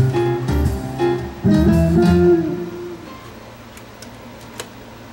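Music playing from a CD on the Bose Wave radio, its freshly repaired CD drive reading the disc. The notes fade away about halfway through, leaving a quiet stretch with one sharp click.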